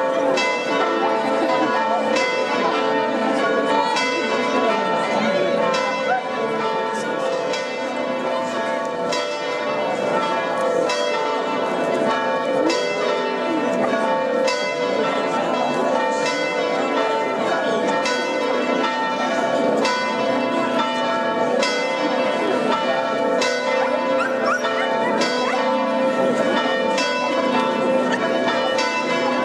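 Church bells ringing for a wedding, struck over and over so that their ringing tones overlap, over the chatter of a crowd.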